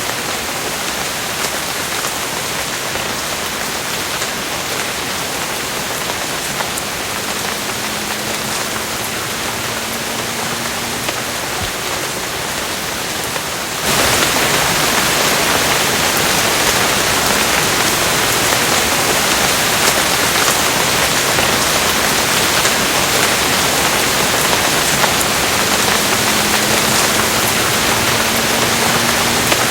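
Steady rain falling, an even hiss with fine scattered drop ticks. About halfway through it suddenly becomes louder and brighter, as if a heavier stretch of rain begins.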